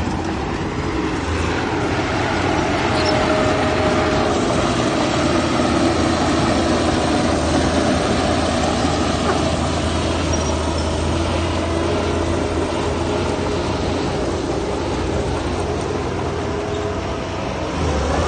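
Heavy diesel earthmoving machinery running steadily, a low, continuous engine rumble with no sharp knocks.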